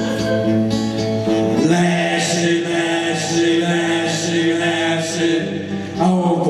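Male voices singing long held notes to an acoustic guitar, the chord changing about a second and a half in, with a light stroke roughly once a second.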